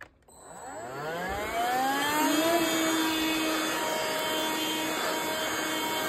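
Hihhy cordless handheld vacuum cleaner switched on with a click, its motor spinning up in a rising whine over about two seconds, then running steadily at a high whine while sucking debris off a bedsheet.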